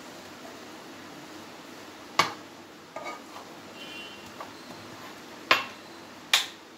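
Wooden spatula stirring and scraping a thick coconut-and-milk mixture in a non-stick kadai, with sharp knocks of the spatula or utensils against the pan: one about two seconds in and two more near the end.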